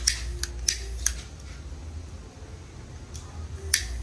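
A hand-held lighter being flicked, giving sharp clicks: four in quick succession in the first second, then one more near the end.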